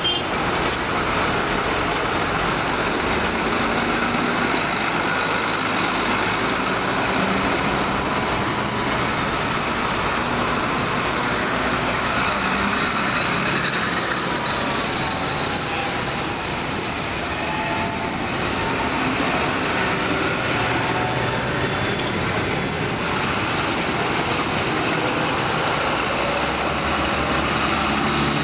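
Diesel farm tractors driving past one after another in a procession, among them a blue Ford, a red Case IH and a green John Deere, their engines running at a steady road pace.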